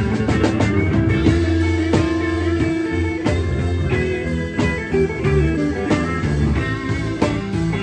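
Live blues band playing an instrumental passage: electric guitar over electric bass and drum kit, with a long held note lasting about three seconds near the start.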